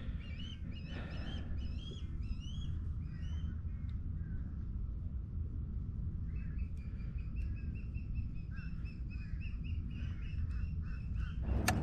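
Birds calling: a scatter of quick chirps in the first few seconds, then a run of repeated call notes from about the middle on, over a steady low rumble. A sharp click near the end.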